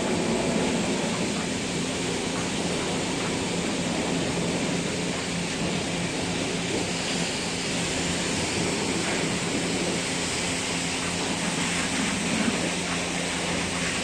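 Self-service car wash's high-pressure wand spraying water, a steady hiss with a steady low motor hum beneath.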